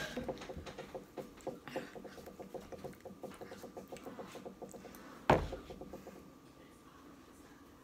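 Metal spoon clicking and scraping in a paper ice cream cup, small quick clicks about four or five a second, then a single loud knock a little past halfway, after which the clicking stops.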